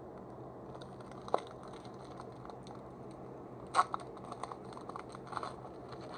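A Pokémon Breakpoint booster pack's foil wrapper crinkling in the hands and being torn open. The loudest rip comes a little under four seconds in, followed by more light crackling.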